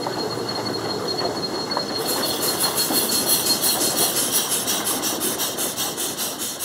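Paddle steamer passing close at speed: a steady rush of water with, from about two seconds in, the fast regular beat of its paddle wheels striking the water, about five beats a second.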